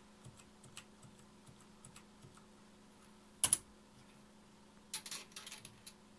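Keys on a StarWriter Pro 5000 word processor's keyboard being pressed one at a time to step through a menu, light clicks about twice a second. A louder double click comes about three and a half seconds in, then a quick flurry of clicks near the end as the machine restarts, all over a faint steady hum.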